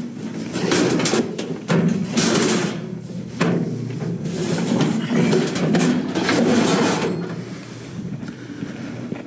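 Metal display-rack panels scraping and clanking as they are slid into the cargo area of a van, a run of irregular bangs and scrapes that eases off near the end.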